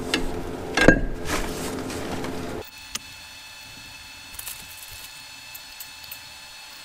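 Light metal clicks and knocks as a new Exedy flywheel is set onto the crankshaft flange and its bolts are started by hand, the sharpest click about a second in. A steady hiss underneath cuts off suddenly about two and a half seconds in, leaving only a few faint ticks.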